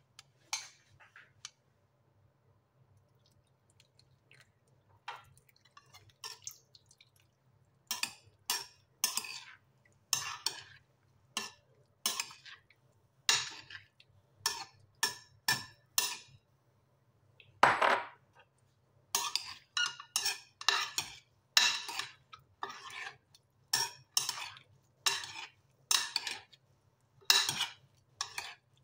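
Metal spoons scraping and clinking against a ceramic bowl as roasted cauliflower and broccoli florets are tossed. A few scattered strokes at first, then from about eight seconds in a steady run of one stroke every half-second to second.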